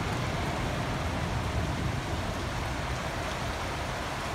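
Steady rain falling, a continuous even hiss, with gusts of wind rumbling low on the microphone.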